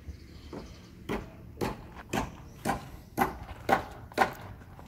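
Footsteps of a person walking, about two steps a second, each one a short crunching step.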